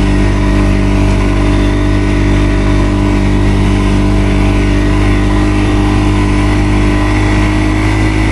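ATV engine running steadily, its pitch holding level.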